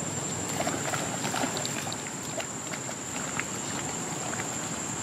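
Monkeys splashing as they wade and swim through shallow water, a quick run of small splashes in the first three or so seconds, over a steady high-pitched whine.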